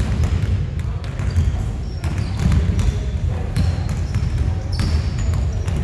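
Several basketballs bouncing irregularly on a hardwood gym floor during a warm-up shootaround. Short high squeaks of sneakers are heard now and then, and the large gym makes it all echo.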